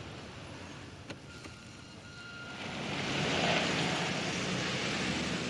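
Car driving on a road: engine and tyre noise that swells about halfway through and stays loud, with a faint click about a second in.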